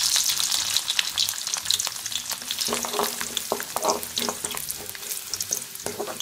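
Garlic cloves sizzling and crackling in hot coconut oil, the sizzle slowly dying down; from about halfway through a spoon stirs them, scraping against the aluminium pan.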